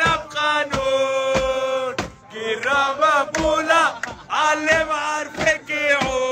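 A group of men chanting a football supporters' song together in a loud, close unison, with hand-struck beats about twice a second keeping time. The chant dips briefly about two seconds in, then picks up again.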